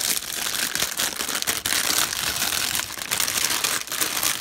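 Thin clear plastic bag crinkling and crackling steadily as it is pulled off a small metal drive enclosure by hand.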